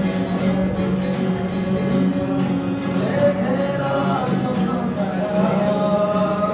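Acoustic guitar being strummed, with a man's voice singing along from about halfway.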